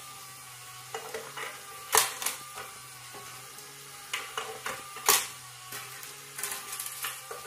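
Coins clinking and clicking at irregular moments as a parrot picks them up off a tabletop and drops them into a skeleton coin-bank toy. The loudest clinks come about two seconds in and about five seconds in, with a quick run of lighter clicks near the end.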